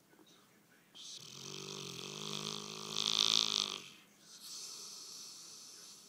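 Bullmastiff snoring in its sleep: one long, pitched, rattling snore starting about a second in and growing loudest near its end, followed by a softer airy breath.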